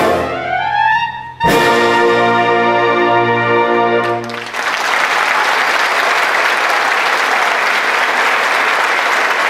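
Concert band with prominent brass finishing a piece: a rising glide leads into a loud final chord held about three seconds, which stops sharply about four and a half seconds in, and the audience breaks into applause.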